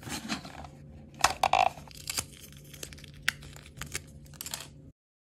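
Close-miked handling of small plastic toy pieces: a light rustling broken by several sharp clicks, the loudest about a second and a quarter in and again a little past three seconds. It cuts off suddenly near the end.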